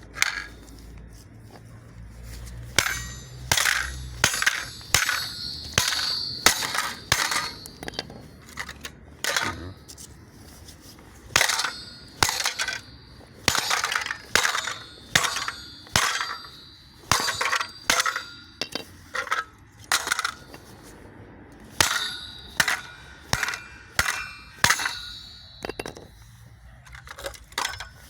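A long series of sharp metallic clinks, about one a second and unevenly spaced, each with a brief high ringing tail. A low steady hum runs under the first few seconds.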